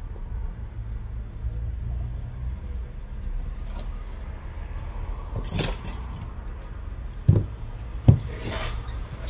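Handling noise on a rubber bench mat: a tissue wiping a phone's glass back cover, a brief rustle a little past halfway, then two soft thumps as the phone is turned over and set down, over a steady low hum.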